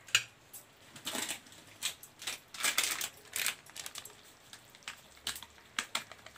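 Scattered sharp clicks and light taps at irregular intervals, with a denser run of them about halfway through.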